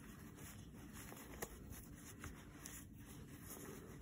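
Faint rustling and rubbing of handwoven fabric and lining as a small woven purse is worked through an opening and turned right side out, with a light click about a second and a half in.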